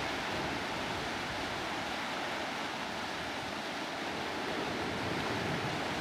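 Sea surf washing over rocks: a steady rush of waves with no distinct bird calls.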